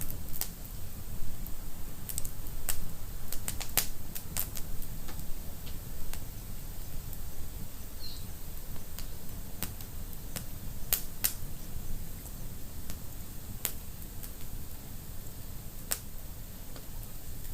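Wood fire burning in a fireplace: a steady low rumble of flames with sharp crackles and pops, several close together in the first few seconds and then single ones every second or two.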